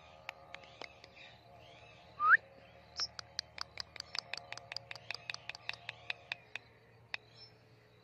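Rose-ringed parakeet calling: one loud, short rising whistle about two seconds in, then a rapid run of sharp clicking chirps, about six a second, for some three and a half seconds.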